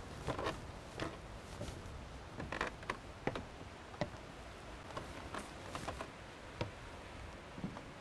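Scattered footsteps and light knocks on wooden steps and a wooden plank floor, coming at irregular intervals.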